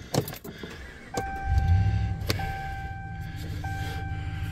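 Pickup truck engine starting about a second in, surging briefly and then settling into a steady idle. A dashboard warning chime sounds as a steady tone, broken about every second and a quarter, with a single click partway through.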